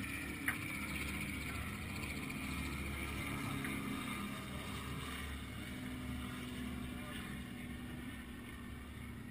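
Steady rush of water along a sailing yacht's hull as it sails under way, with wind on the microphone and a sharp click about half a second in.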